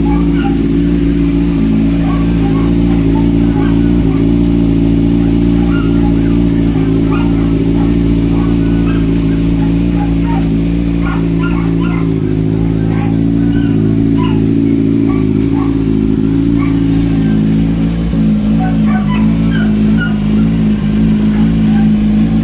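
Kawasaki Z1000's inline-four engine idling steadily through a newly fitted aftermarket exhaust canister, an even, continuous exhaust note.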